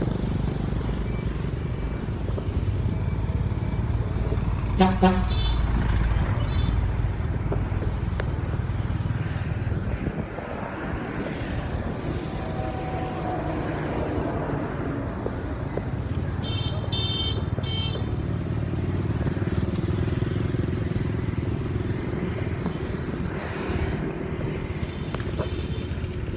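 Street traffic rumble heard from a moving scooter, with a vehicle horn honking briefly about five seconds in. A second, higher-pitched beep sounds for about a second a little past the middle.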